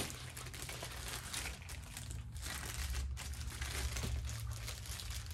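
Plastic packaging wrapped around a boxed mini replica belt crinkling and rustling in the hands as it is unwrapped, with irregular crackles and a steady low hum underneath.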